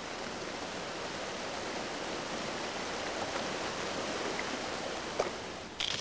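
Mountain stream rushing steadily over rocks, with a brief sharp sound near the end.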